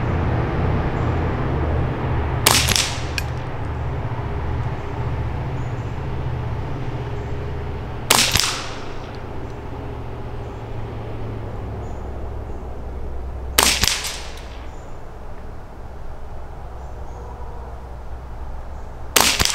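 .22 Long Rifle rifle firing four single shots, each a sharp crack, about five and a half seconds apart.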